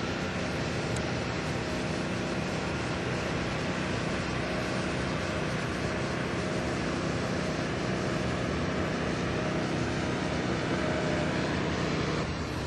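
Light aircraft engine and propeller running steadily, a continuous drone with a fixed pitch.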